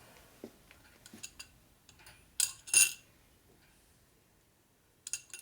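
Light metal parts clinking and tapping as chrome fork covers are handled and fitted, with two sharp clinks close together about two and a half seconds in and a few more small clicks near the end.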